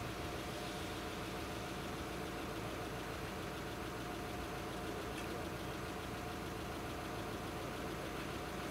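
Audi A4 car engine idling steadily while stopped at a closed level crossing.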